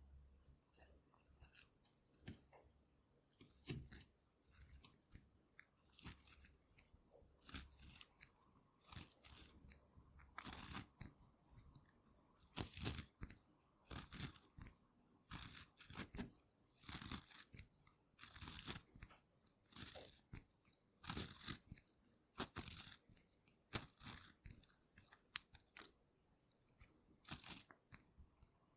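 Pencil sharpened by hand in a small handheld sharpener: a run of short crunchy, scraping strokes as the blade shaves the wood, about one a second, starting sparse and getting more regular and louder after a few seconds.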